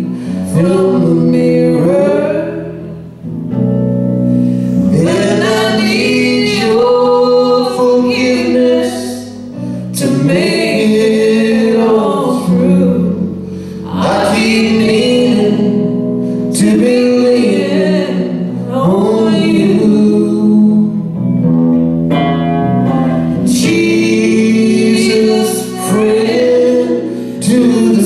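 Live band playing a song: a man and a woman singing over electric guitar and drums.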